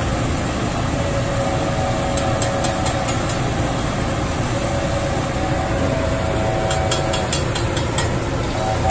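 Food sizzling on a hot flat-top teppanyaki griddle over a steady low rumble, with short clicks of a metal spatula against the griddle in two clusters, about a third of the way in and again past the middle.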